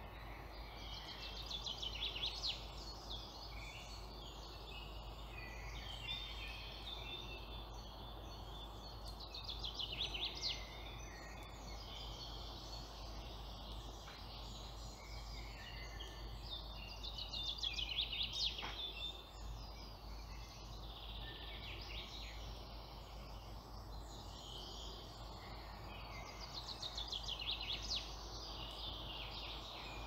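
Wild songbirds singing: one bird repeats a loud, fast trilled phrase of about two seconds, four times at roughly eight-second spacing, over quieter chirping from other birds and a steady low background noise.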